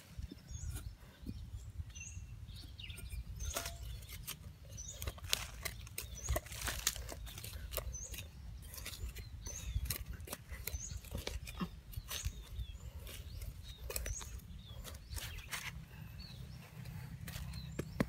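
A small metal hand hoe chopping and scraping into loose soil, digging a hole in irregular strokes, with small birds chirping in the background.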